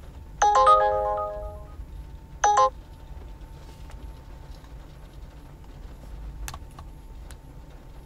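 Uber driver app's trip-request alert chiming from a phone: a chord of bell-like notes about half a second in, a shorter repeat about two and a half seconds in, signalling an incoming ride request. A faint low hum of the car cabin follows.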